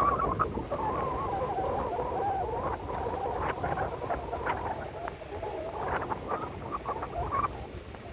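Skis sliding over groomed, packed snow: a steady scraping hiss with a wavering squeal in the first few seconds and short squeaks from the snow later on, mixed with wind on the microphone.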